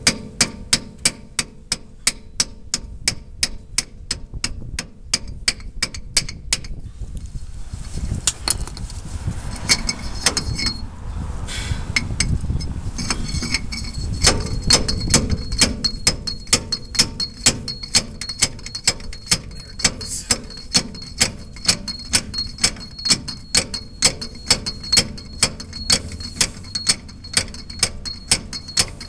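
Steady run of sharp metallic ticks, three to four a second, each with a short ring, from hand-tool work on a 700R4 transmission's tail housing. They stop for several seconds about a quarter of the way in and start again near the middle.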